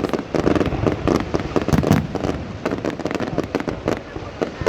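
New Year fireworks going off: a rapid, uneven string of bangs and crackles.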